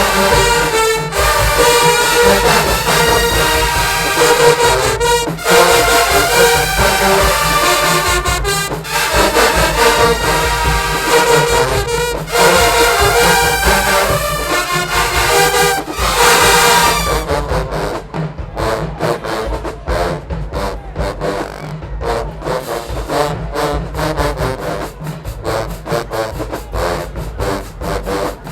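Marching band playing: loud massed brass, trombones and trumpets over drums. About two-thirds of the way through, the horns stop and the drumline carries on alone with quick, steady beats.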